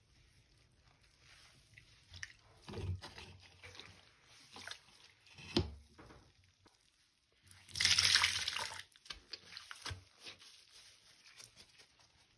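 Wet sponge being pressed and squeezed in a ceramic sink: squelching and dripping, with a louder rush of water splashing into the basin for about a second roughly two-thirds of the way through.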